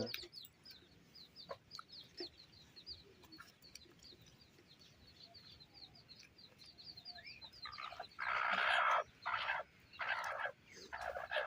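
Chickens calling: a quick run of short, high peeps, then louder, harsh clucking calls near the end, the loudest held for about a second.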